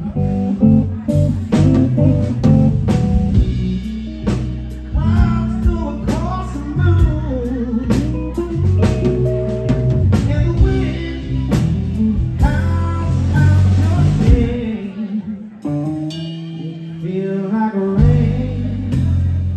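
Live blues band: a man singing over electric guitar, electric bass and drum kit. About three-quarters of the way through, the bass and drums drop back for a few seconds, then come back in.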